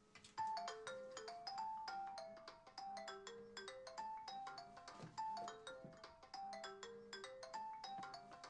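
Mobile phone ringing with a melodic ringtone: a short tune of quick, bright notes that plays over and over.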